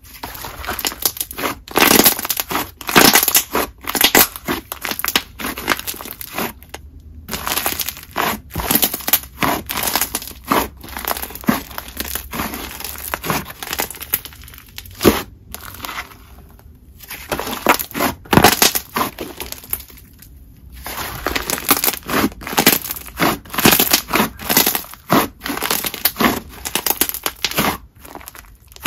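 Hands squishing, pressing and stretching a thick, squishy clay slime made of a clear slime base mixed with soft clay, giving dense runs of wet squelches and small bubble pops, broken by a few short pauses.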